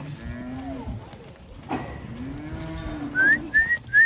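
Feeder calves mooing, two long low calls, then three short rising whistles near the end.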